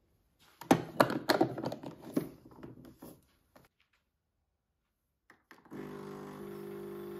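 A quick run of knocks and metal clinks as ground coffee is tamped into a portafilter. A little past halfway, a SilverCrest espresso machine's pump switches on with a steady buzzing hum as it starts to brew.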